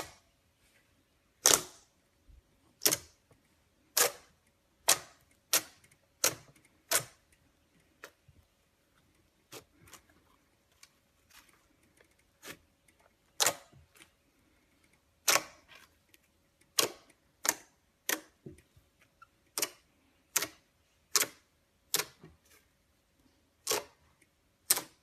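Glossy slime being pressed and squeezed, giving sharp clicking pops at irregular intervals, about one a second.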